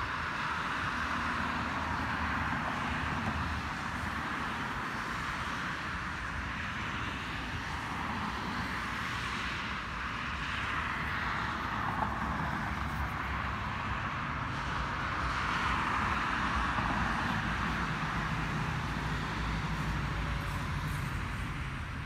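Road traffic: a steady hiss of tyres and engines, swelling as cars pass about halfway through and again toward the end.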